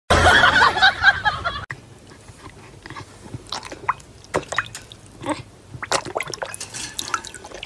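A dog splashing and slurping with its muzzle in a tub of water as it goes after a floating toy, giving irregular sloshes, drips and small splashes. A short, louder, noisy stretch fills the first second and a half.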